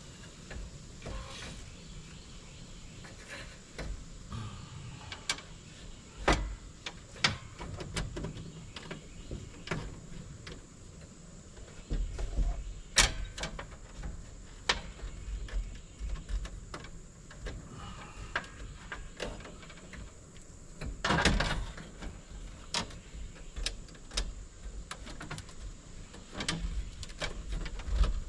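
Scattered clicks and knocks of tools and screws being worked on a metal electrical sub panel, with one short whir of a small motor about three-quarters of the way through.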